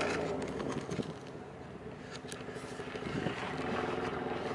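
A steady engine hum with a few faint clicks.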